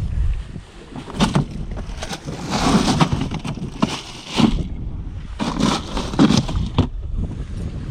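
Wind buffeting the microphone on a boat in choppy water, with a rustling spell and several sharp knocks and bumps.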